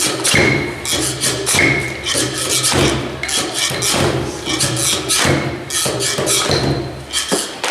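Percussive music: repeated sharp knocks and thumps about twice a second over a steady low tone.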